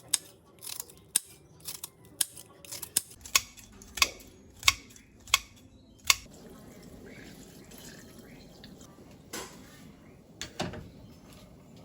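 Food being cut in the kitchen: a string of sharp, crisp cuts, the later ones about one every two-thirds of a second. After about six seconds the cutting stops, giving way to a low steady background noise with a couple of clatters near the end.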